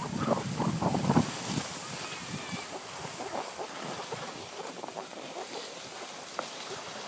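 Skis sliding over packed snow, a steady rush and scrape, with wind buffeting the microphone. The buffeting is heaviest for about the first second, then the sound settles into an even hiss.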